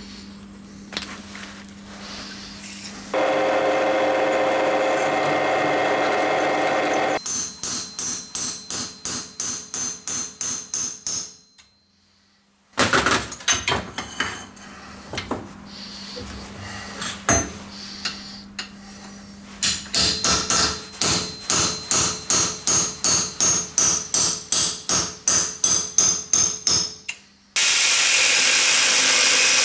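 Steel on a bench vise struck with a hammer in two long runs of ringing blows, about three a second, with scattered knocks between them. A power tool runs steadily for about four seconds early on. Near the end an angle grinder starts grinding a steel seam with a steady hiss.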